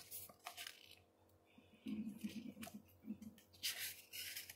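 Faint papery rustles as the pages of a thin paperback children's book are flipped and handled, with a few short rustles near the start and a longer one near the end.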